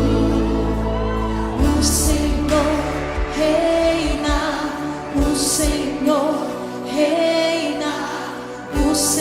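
Live gospel worship music: a singing voice carrying a melody over a band with sustained keyboard chords, with bright high-pitched hits every few seconds.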